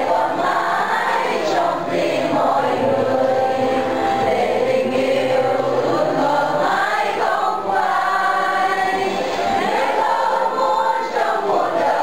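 Music: a song sung by a group of voices together, like a choir.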